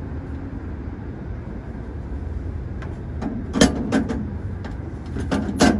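Steady low hum of a hotteok stall, then from about halfway several sharp clicks and knocks of cooking utensils working the pancakes on the griddle.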